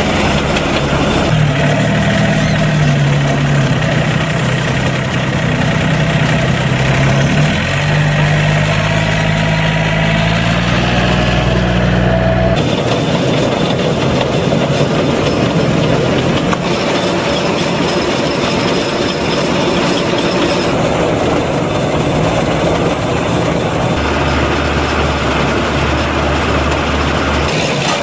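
Compact wheel loader's engine running as it drives, its pitch shifting up and down. About twelve seconds in this changes abruptly to an Agronic MR820 round baler-wrapper running steadily, its conveyor carrying chopped corn silage, with a low hum joining near the end.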